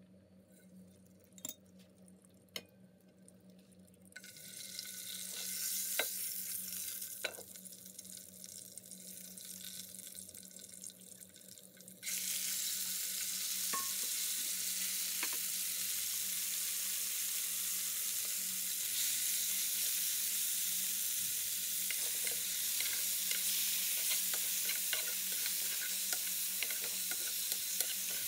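Oil in a frying pan starts to sizzle faintly a few seconds in. About twelve seconds in it jumps to a loud, steady sizzle as raw chicken pieces fry in the oil. Scattered clicks of a spoon moving the chicken in the pan come through the sizzle.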